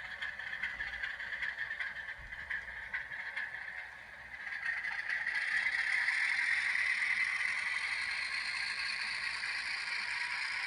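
N scale model train running on the layout's track: a light rattling with fine ticks, then a louder steady running noise from about four and a half seconds in.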